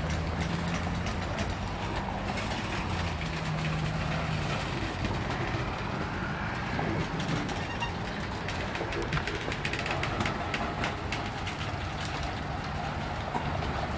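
Train going by: a steady rail rumble with many sharp clicks and clanks, and a low diesel engine drone that is strongest in the first few seconds.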